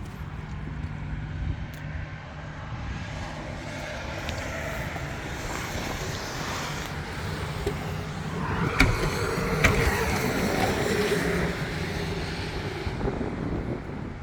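Takeuchi TL8CRW tracked skid steer's diesel engine running with a steady low hum. The sound swells through the middle, with two sharp metallic clanks about nine and ten seconds in.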